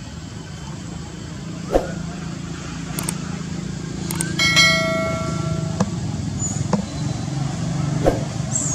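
Subscribe-button animation sound effects: a few sharp mouse clicks and, about four and a half seconds in, a bright bell-like ding ringing for just over a second. A steady low hum runs underneath.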